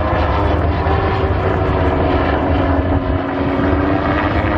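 Gyrocopter in flight, its propeller engine droning steadily, the pitch sagging slightly and then rising again near the end.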